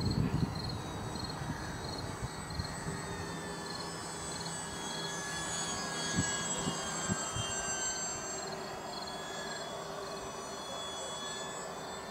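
Electric motor and propeller of a HobbyKing Tundra RC model plane whining steadily as it flies by, the pitch drifting slightly with throttle and distance. Wind buffets the microphone briefly at the start.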